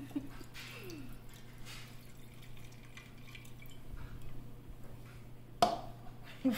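Water poured from a plastic cup into a glass baking dish of ice cubes, trickling and dripping onto the ice. A single sharp knock comes near the end.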